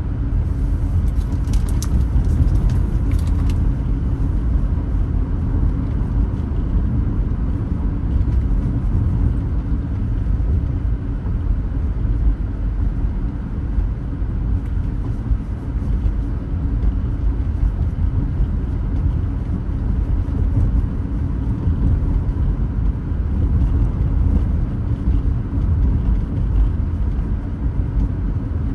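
Car driving along a road: a steady low rumble of tyre, engine and road noise, with a few brief high-pitched sounds about two seconds in.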